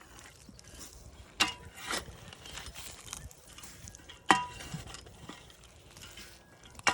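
Metal shovel digging into soil, its blade striking with four sharp metallic clinks that ring briefly, spaced a second or more apart.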